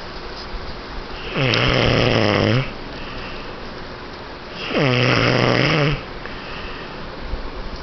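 Snoring: two long snores about three and a half seconds apart, each a buzzing tone that slides down in pitch and then holds low for over a second.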